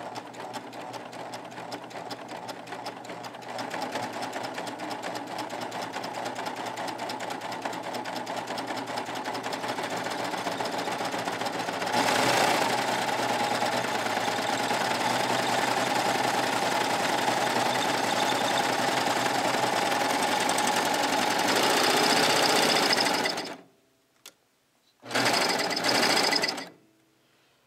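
Baby Lock Triumph serger running a narrow cover stitch to sew on knit bias binding. It runs steadily, speeds up a few seconds in and again about halfway, stops, then gives one short run near the end.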